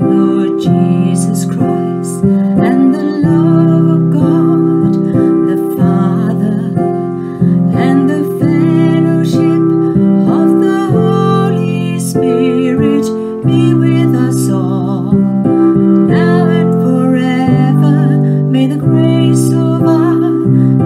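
A woman singing with keyboard accompaniment: long held notes with vibrato over sustained chords that change every second or two.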